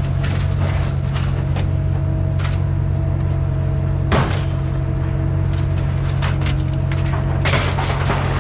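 A steady low mechanical drone, like an engine running, with irregular sharp knocks and clanks over it, the loudest about halfway through and another cluster near the end.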